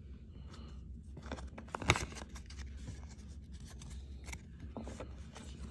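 Trading cards being handled and flipped through: light scraping and small clicks of card stock against card stock, with one sharp snap about two seconds in.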